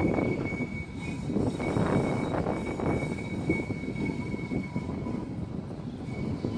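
Alstom Citadis X05 light rail tram running along the track: low wheel and running noise with a steady high-pitched whine held through most of it.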